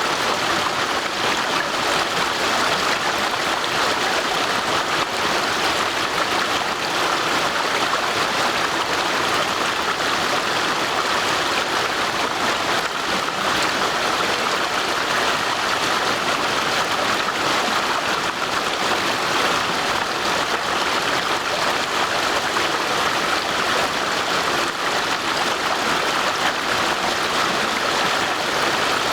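Stream water rushing and splashing over stones, a steady unbroken rushing sound.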